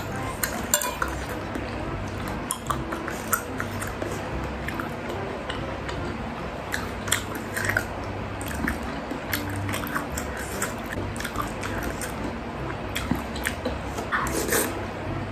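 Close-miked eating: mouth sounds of chewing and slurping bakso in broth, with a metal spoon clicking against the bowl now and then, over the steady low hum of an electric fan.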